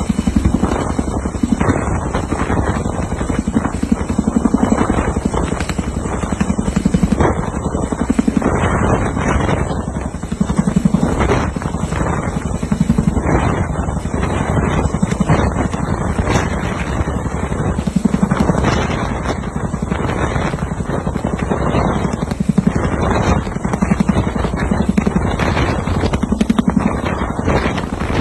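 Helicopter rotor running steadily overhead: a fast, continuous blade chop over engine noise, swelling and easing in loudness every couple of seconds.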